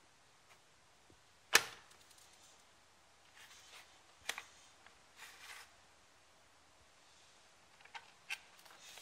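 Hard plastic jaw of a Schleich skull trap toy snapping shut with one loud sharp clack about a second and a half in. After it come a softer click, plastic rustling, and a couple of small clicks near the end as the jaw is handled and pried open.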